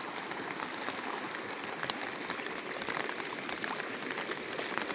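Steady hiss of heavy rain and floodwater running over the ground, with a few faint ticks.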